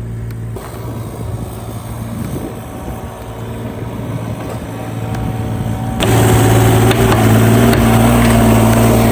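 A large engine running steadily, likely the crew's heavy equipment, with a low hum; it gets suddenly much louder about six seconds in.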